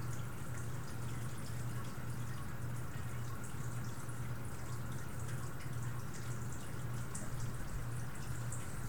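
Steady low hum with a faint hiss and scattered light ticks: background room noise with no speech.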